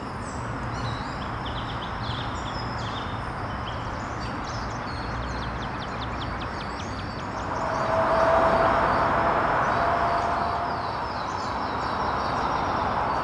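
Outdoor traffic hum with small birds chirping over it. About seven seconds in, a passing vehicle swells the noise for a few seconds, carrying a steady whine, then fades.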